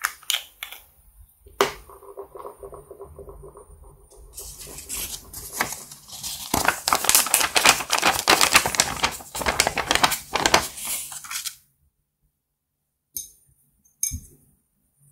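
Scratchy, papery rubbing of a pink cosmetic balm dragged across a paper banknote, with the bill crinkling, lasting about seven seconds before stopping abruptly. It is preceded by a few sharp clicks from twisting the cosmetic's plastic case and followed by two light taps.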